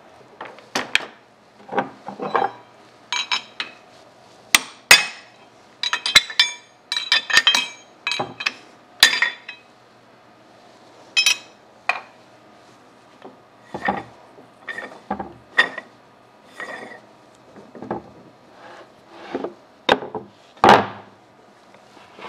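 Steel tools and parts being handled and set down at a metalworking lathe: irregular metallic clinks and knocks, a few of them sharp, ringing clanks.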